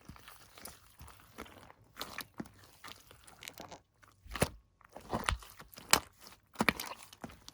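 Crunchy chocolate slime being squished and pressed, crackling and popping irregularly, with the loudest pops coming in the second half.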